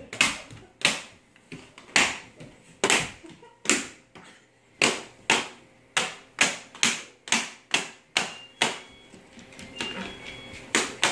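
Hard plastic TV remote clacking against a hardwood floor as a crawling baby slaps it down with each hand movement: a long irregular run of sharp knocks, about two a second, that thins out near the end.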